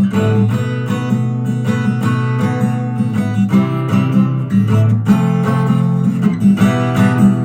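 Acoustic guitar playing alone, strummed chords over a steadily repeating low note, with the chords changing every second or so.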